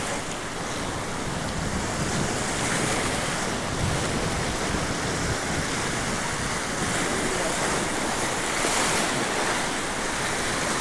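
Surf breaking and washing over the jetty's granite rocks, a steady rushing of waves, with wind buffeting the microphone.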